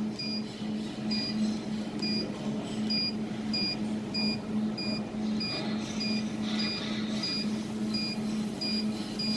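Control panel of a desktop jewelry laser welding machine giving a short beep about every half second to a second, fourteen or so in all, as its decrease button is pressed repeatedly to step the laser support down. A steady low machine hum runs underneath.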